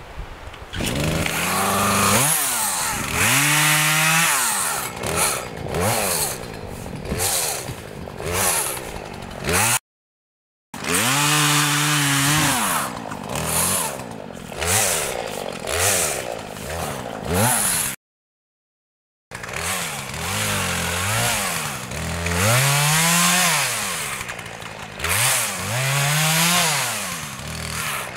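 Two-stroke Poulan chainsaw cutting alder brush, revved up and let back down again and again as it bites into the stems. The sound cuts out abruptly twice.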